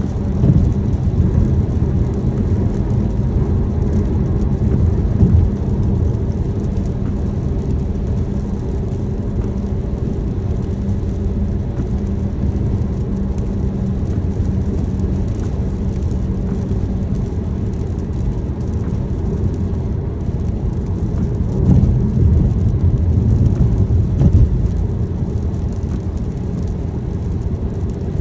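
Car driving in the rain, heard as a steady low rumble of engine and tyre noise with a light hiss of rain, swelling a little for a few seconds past the middle.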